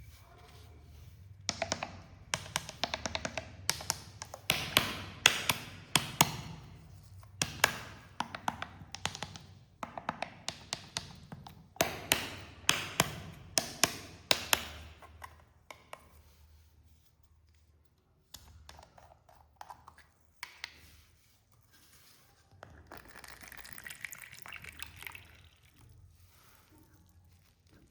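Cola being poured and splashing, with many sharp taps and clinks of glass in bursts for the first half, then softer, sparser sounds with a brief fizzing hiss near the end.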